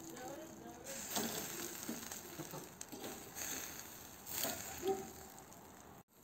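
Chicken sizzling faintly in a wire grill basket over charcoal, with light scattered clicks and scrapes as a metal fork pricks the meat through the grill wires. The sound cuts off just before the end.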